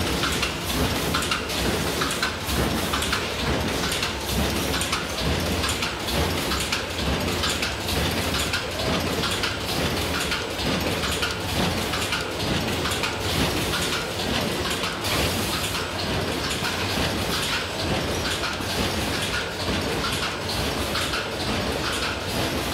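A brochure-stitching line, a TB flex S 204 automatic stitcher feeding a palamides gamma502pro delivery, running in production: a steady, dense mechanical clatter of many fast clicks and rattles from the feeding, stitching and conveying mechanisms.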